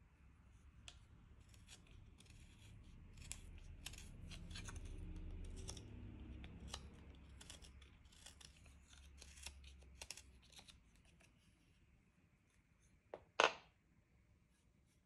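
Hand carving tool paring chips from hard Japanese zelkova wood: a run of quiet, crisp little snicks as the blade cuts. Near the end comes a single sharper knock as the tool is set down on the wooden table.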